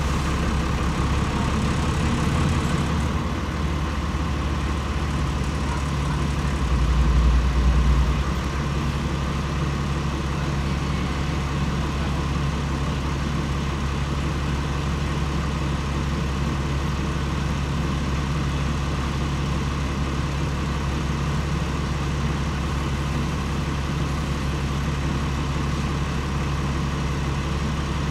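Cummins ISL8.9 inline-six diesel of a Dennis Enviro 500 double-decker bus idling steadily, with a brief louder low rumble about seven seconds in.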